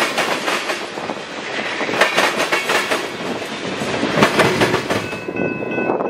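Freight train tank cars rolling past at close range, their wheels clacking over rail joints in clusters of sharp strikes over a steady rolling rumble. About five seconds in the rolling noise drops away and a steady high ringing tone takes over.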